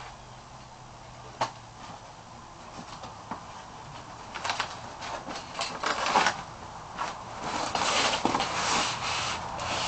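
Cardboard shipping box being opened and unpacked: flaps and an inner cardboard sleeve scraping and rustling, with a sharp knock about a second and a half in. The scraping grows busier and louder through the second half.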